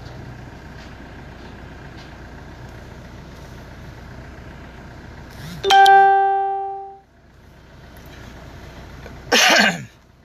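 A single loud electronic ding about six seconds in, ringing out and fading over about a second, over a steady low hum inside a vehicle. A short loud burst comes near the end.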